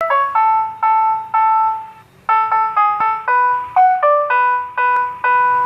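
The jingle of a Susu Murni Nasional street milk-vendor cart: an electronic chime melody of short, fading notes, with a brief pause about two seconds in before the tune carries on.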